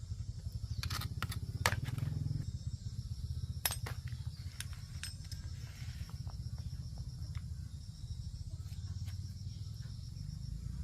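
Sharp clinks and knocks of hand tools on metal machine parts, several close together about a second in and another near four seconds, over a steady low hum.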